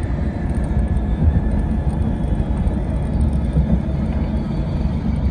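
Car driving: a steady low rumble of road and engine noise.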